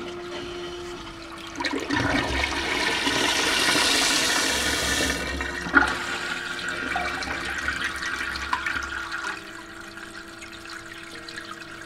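A flush toilet being flushed: a rush of water starts about two seconds in and is loudest for the next few seconds. A single sharp knock comes about six seconds in, then the water runs on more quietly and dies down about nine seconds in.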